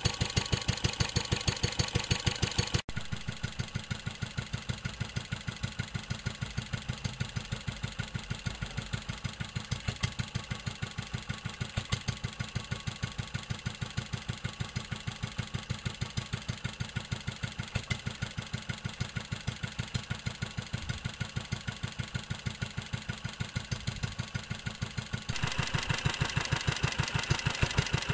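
Wolseley WD8 single-cylinder side-valve petrol stationary engine running steadily, with an even beat of firing strokes several times a second.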